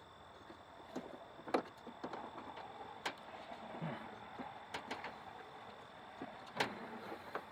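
Hands working an engine wiring harness and its plastic connectors: a rustle with scattered sharp clicks and knocks.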